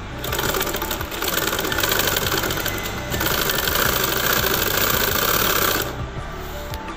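Sewing machine stitching fast and continuously, sewing down the double-folded hem of a chudithar's side opening. It starts just after the beginning, eases twice for a moment, and stops about a second before the end.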